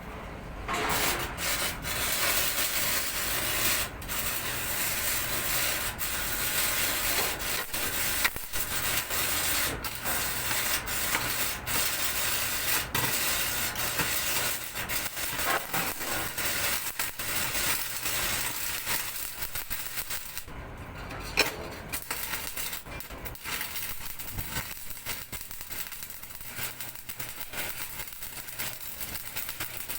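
Electric arc welding: a steady crackling, sizzling hiss with irregular pops, breaking off briefly about two-thirds of the way through, followed by a sharp click.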